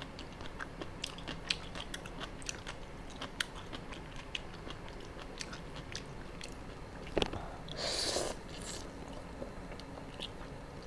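Close-up chewing of spicy seafood papaya salad, with many small wet mouth clicks. About seven seconds in a sharper click is followed by a brief hiss.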